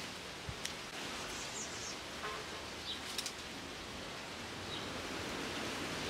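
Outdoor garden ambience: a steady hiss with a few short, faint bird chirps and a few small clicks.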